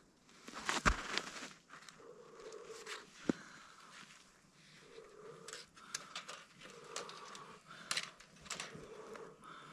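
A person breathing heavily close to the microphone, a breath every one to two seconds. A sharp knock about a second in and a few lighter clicks, likely handling noise.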